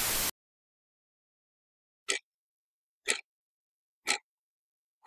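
A hiss of static cuts off suddenly, and after a spell of dead silence a clock ticks evenly once a second, starting about two seconds in.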